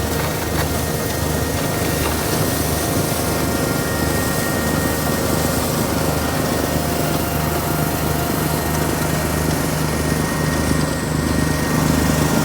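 Farm tractor engine running steadily, driving a PTO snowblower.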